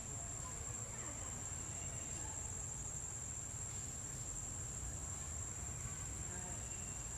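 Steady, high-pitched drone of insects, unbroken throughout, over a low rumble.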